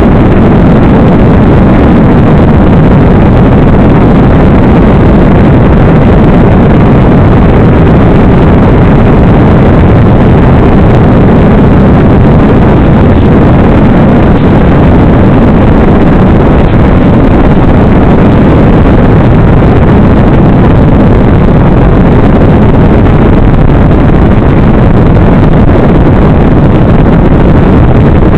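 Steady, loud, distorted rush of an RC model plane's motor and propeller mixed with wind, picked up by the plane's onboard camera microphone in flight.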